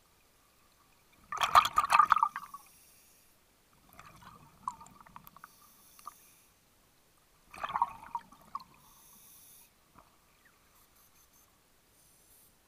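Scuba diver breathing through a regulator underwater: two loud rushes of exhaled bubbles about six seconds apart, with a weaker, rattling one between them.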